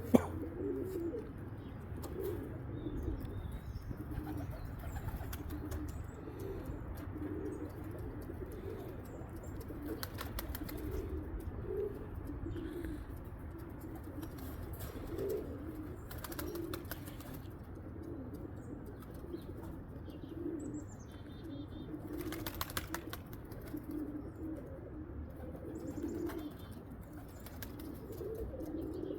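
Domestic pigeons cooing over and over, with a few short flutters of wings.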